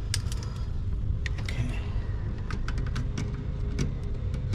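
Scattered small clicks and taps from handling a voltage tester and its probes at a breaker panel, over a steady low rumble.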